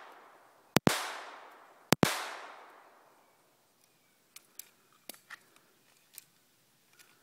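Two pistol shots a little over a second apart, each followed by a long echo that dies away over about a second. Then a few small faint clicks as the pistol is handled; it has stopped firing because no round was chambered.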